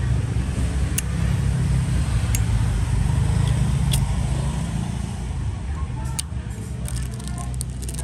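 Zippo lighter being handled: single sharp clicks one to two seconds apart, then a quick run of clicks near the end, over a steady low rumble of road traffic.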